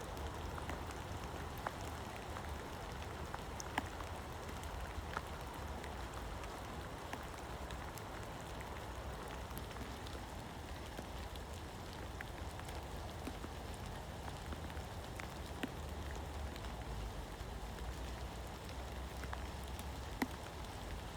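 Heavy rain falling steadily, an even hiss with scattered sharp ticks of single drops landing close by.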